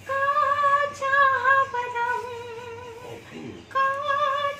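A woman singing without accompaniment, holding long high notes with a wavering vibrato and pausing briefly about three seconds in.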